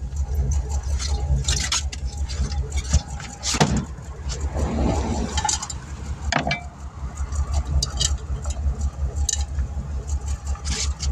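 A vehicle engine idling steadily, with scattered metallic clinks and clanks of tools and parts being handled.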